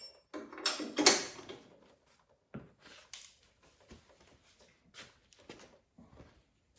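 Metal transmission parts handled on a workbench: a short ringing metallic ping, a louder clatter and scrape about a second in, then scattered small clicks and knocks.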